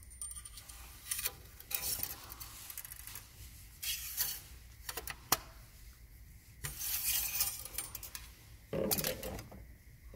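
Steel engine oil dipstick being drawn out of its tube, in several bursts of metallic scraping and clinking, with a sharp click about five seconds in.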